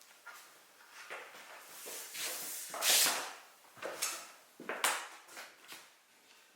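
Wood being worked by hand: a handful of irregular scraping strokes and knocks on wood, the longest and loudest swelling to a peak about three seconds in.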